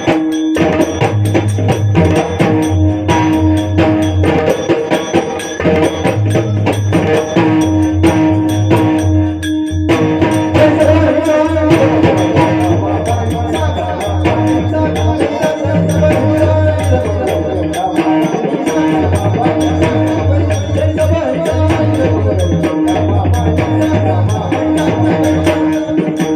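Live Marathi kirtan music: drums keep a steady beat with jingling hand percussion over a held drone tone. From about ten seconds in, a voice sings a devotional tune over the accompaniment.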